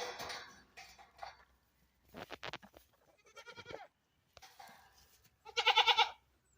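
Farm animal bleating: a shorter wavering bleat about three and a half seconds in, then a louder, quavering bleat near the end, with a few short rustling or scuffling sounds about two seconds in.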